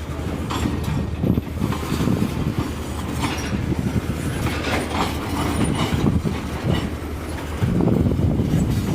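Railroad tank cars rolling past, a steady low rumble with wheels clicking over the rail joints.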